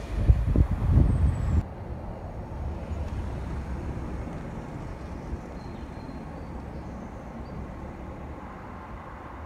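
Low rumble of a train that has just passed, cut off abruptly about a second and a half in. It is followed by a quieter, steady low background noise from the empty line, with no train heard.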